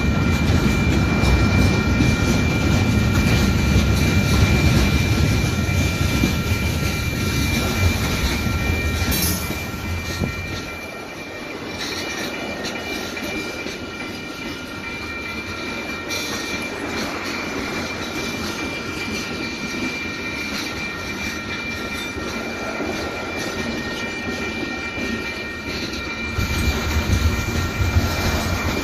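Freight cars (gondolas, hoppers and tank cars) rolling past at a grade crossing, wheels clattering on the rails over a steady high tone. The low rumble is heavy for the first ten seconds, eases, and comes back near the end.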